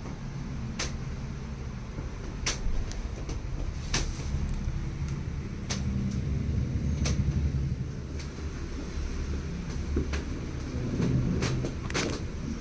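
Joints cracking with short, sharp pops under a chiropractic adjustment, about one every second or two, over a steady low rumble.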